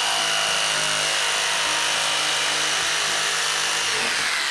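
Corded electric jigsaw running steadily as it saws through a sheet of polystyrene foam, a continuous motor whine with blade noise; near the end the pitch drops as the saw slows down.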